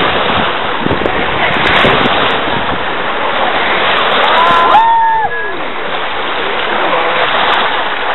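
Small waves washing up on a sandy beach, a steady rushing. A short high-pitched call with a few gliding tones cuts in about halfway through.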